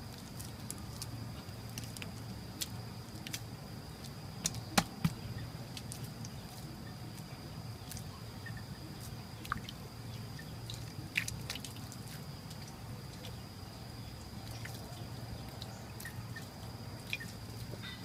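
Hands patting and smoothing wet mud, with irregular wet slaps and squelches; the sharpest slaps come about five seconds and eleven seconds in.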